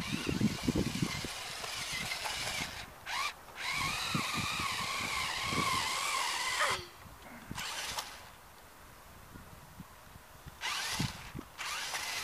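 Electric drive motor of a 1:18 HB-P1801 rock-crawler RC car whining as it drives, its pitch wavering with throttle and load. About seven seconds in the whine falls in pitch and stops, and a short burst of motor noise comes again about eleven seconds in.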